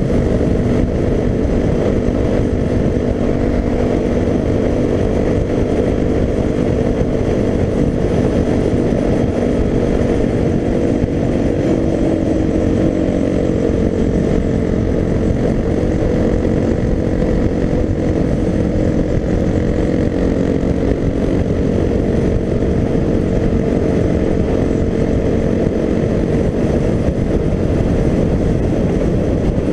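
Suzuki DR-Z250's single-cylinder four-stroke engine running at a steady cruise, with wind rushing over the bike-mounted camera's microphone.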